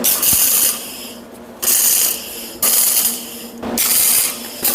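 Arc welder laying a quick series of short tack welds on steel: crackling bursts, each under a second, about one a second.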